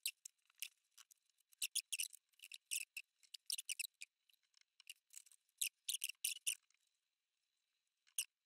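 Paintbrush bristles scrubbing paint in a plastic palette and dabbing it onto paper: a quick, irregular series of short dry scratching strokes that stops about seven seconds in, with one more stroke near the end.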